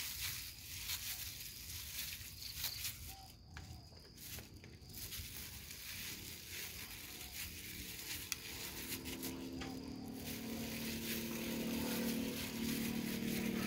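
Faint rustling and squishing of a plastic-gloved hand squeezing lime and working food on a steel tray. From about nine seconds in, a steady engine hum comes in and grows louder, becoming the loudest sound.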